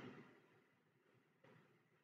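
Near silence: faint room tone, with a soft knock right at the start that fades away.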